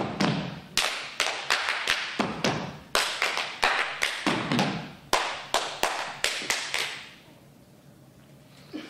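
Percussive stomp routine: dancers' feet stomping and tapping on a stage floor and hands clapping in a steady rhythm, about three to four strikes a second with heavier thuds among them. The rhythm stops about seven seconds in, leaving faint room noise.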